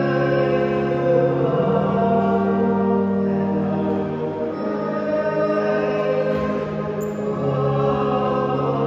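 Slow sacred music: long held chords with choir singing, the harmony shifting every second or two.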